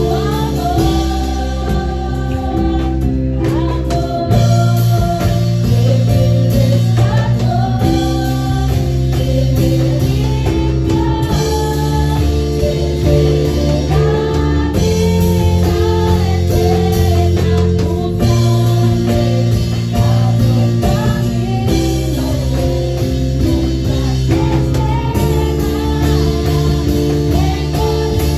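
Live Pentecostal worship chorus: a woman sings lead into a microphone over a band with a steady drum-kit beat and guitar.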